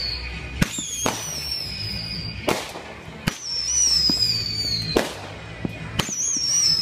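Fireworks going off: about six sharp bangs at uneven intervals, with whistling fireworks whose high whistles slowly fall in pitch, three times.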